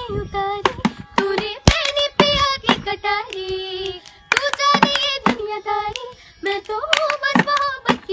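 Two girls singing a song together, keeping the beat with hand claps.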